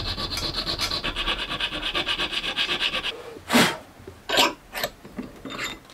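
Hand-filing a small metal part, the catch lever of a tooless pistol guide rod, clamped in a bench vise: rapid, even rasping strokes that stop about three seconds in. A few short, separate scuffing noises follow.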